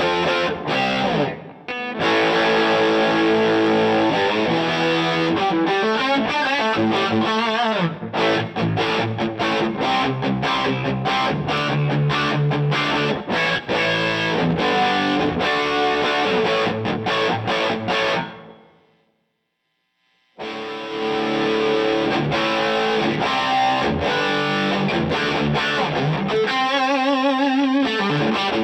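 Electric guitar played through a DVII guitar amplifier as an amp sound demo, with dense, continuous riffing and chords. The playing dies away for about two seconds roughly two-thirds of the way through, then starts again, with wavering vibrato notes near the end.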